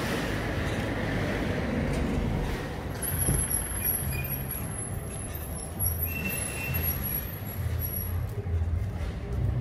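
Road traffic passing: the engine rumble and tyre noise of cars and a small delivery truck driving by. A faint high-pitched whine sounds for a few seconds in the middle.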